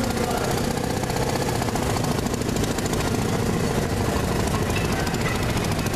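Small gasoline engine of a railroad motor car (speeder) running steadily with rapid, even firing pulses.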